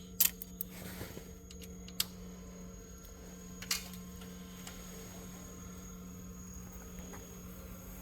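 A few sharp clicks and taps of hard parts being handled at a cylinder head bench, a cluster near the start and two single ones later, over a steady low hum.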